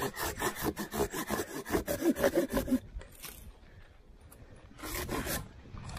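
Hand saw cutting through dead birch wood in fast, even back-and-forth strokes, stopping about three seconds in, then a brief second run of strokes near the end.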